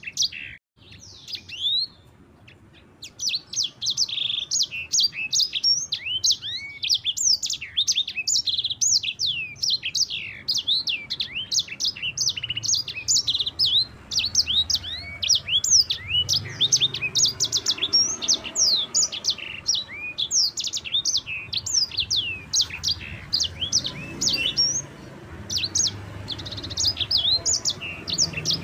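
Sanger bird (a Mozambique-canary-type finch) singing a long, rapid rolling song of fast, high, sweeping chirps, with a short pause about half a second in before it picks up again.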